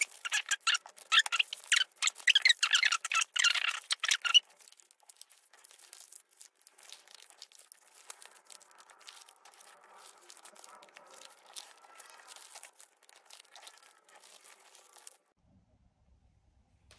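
Paperback book pages being folded and creased by hand: dense paper rustling and crinkling, loud for about the first four seconds, then much fainter, dying to near silence shortly before the end.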